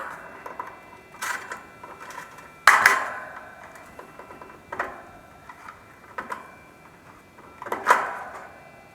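Metallic clanks and clicks of hand work on an air-conditioner unit's sheet-metal control compartment as a capacitor is fitted back in: about six separate knocks with a short ring, the loudest about three seconds in.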